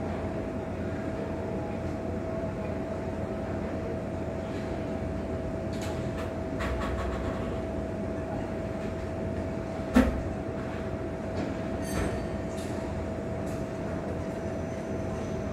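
Steady mechanical rumble with a constant mid-pitched hum, and one sharp click about ten seconds in.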